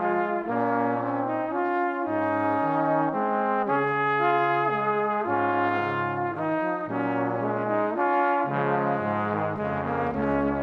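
Background music led by brass instruments, with a melody and bass line moving in steady steps.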